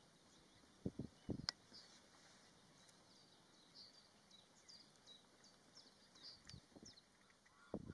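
Near silence with faint, scattered high-pitched bird chirps throughout, and a few soft low knocks about a second in.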